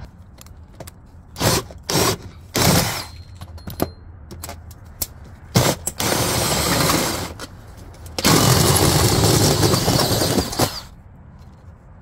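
Cordless drill driving a hole saw through a kiln's sheet-metal jacket. A few short bursts come first, then two sustained runs of cutting noise about a second and a half and two and a half seconds long, the second the louder.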